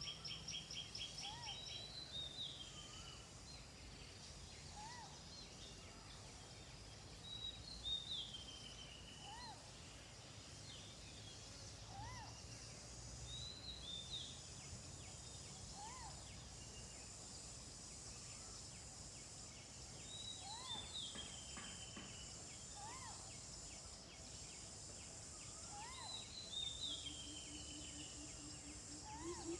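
Birds calling: a short low call repeated about every two seconds, and a higher falling phrase every few seconds. About halfway in, a steady high insect drone joins.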